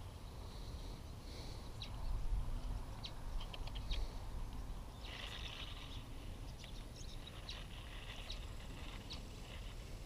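Quiet outdoor ambience: a steady low rumble with scattered faint ticks, and a brief soft hiss about five seconds in.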